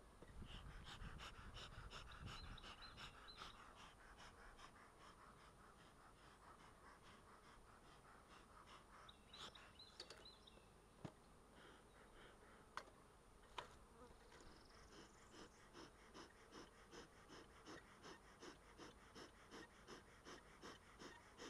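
Faint buzzing of honeybees around an open hive, pulsing at about two beats a second, with a few sharp clicks in the middle.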